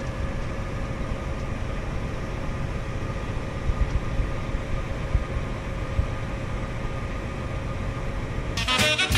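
Tractor engine running steadily, a constant low drone with a steady whine over it. Music comes in near the end.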